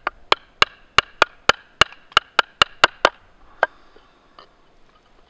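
Wooden baton tapping down on a knife's spine in a quick, even run of about a dozen strikes, roughly three to four a second, each with a faint ring, driving the blade to chip wood off a billet. The strikes stop after about three and a half seconds.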